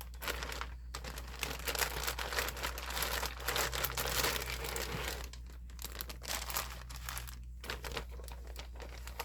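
Cross-stitch kit packaging crinkling and rustling as it is handled, with a few short pauses.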